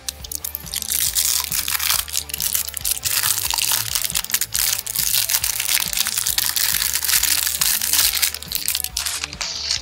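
Cellophane wrapper of a baseball card pack being torn open and crumpled by hand: dense, loud crinkling and crackling that dies away just before the end as the stack of cards comes free. Background music plays underneath.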